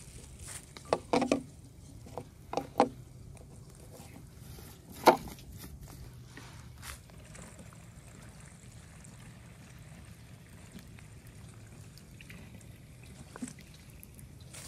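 Cooking sounds: a few sharp knocks and clatters of utensils in the first three seconds, the loudest knock about five seconds in, with liquid sounds between them.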